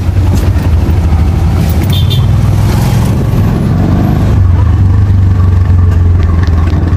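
Tuk-tuk (auto-rickshaw) engine running under way, a steady low drone heard from inside the open passenger cabin, with road and traffic noise. It grows a little louder about four seconds in.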